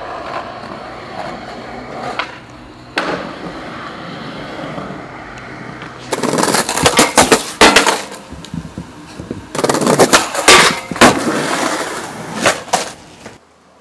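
Skateboard wheels rolling on pavement with a few sharp board pops, then two loud stretches of the board clattering and slapping down, around the middle and again near the end. The sound cuts off suddenly just before the end.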